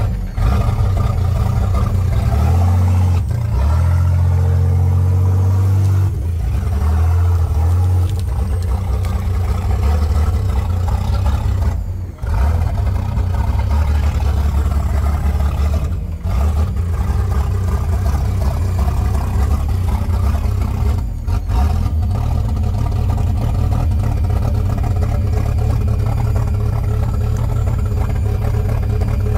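Custom twin-turbo 4.5-litre engine of a GQ Nissan Patrol running while the vehicle stands still, a steady deep idle with a brief rise in revs a couple of seconds in.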